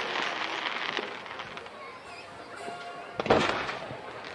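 Aerial fireworks: dense crackling that dies away over the first second, then a single loud shell burst about three seconds in, with a rolling echo.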